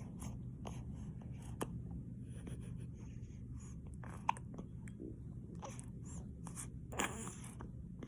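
Hiccups: three short, sudden ones spaced a few seconds apart, over a faint steady hum.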